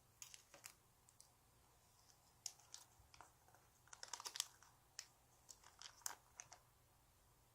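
Faint, scattered clicks and crinkles of hands handling a squishy toy, with a denser cluster about four seconds in.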